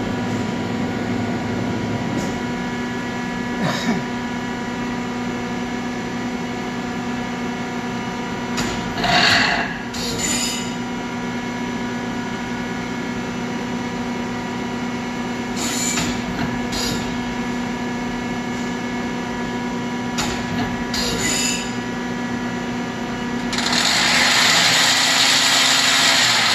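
Mori Seiki ZT 1000Y CNC lathe running: a steady machine hum made of several fixed tones, with a few short hissing bursts partway through. Near the end a louder, even rushing sound comes in as the main spindle runs.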